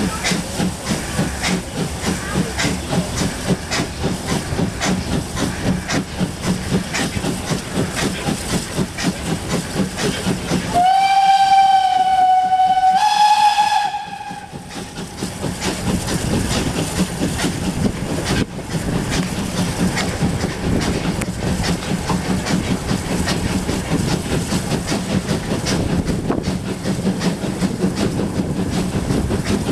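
Steam locomotive running with its exhaust chuffing in a steady rhythm. About eleven seconds in, its steam whistle gives one long blast of roughly three seconds, stepping up in pitch partway through, and then the chuffing carries on.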